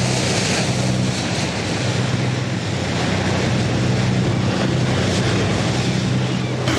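Wind and rough sea crashing and spraying against a fishing boat, over the steady low hum of its engine.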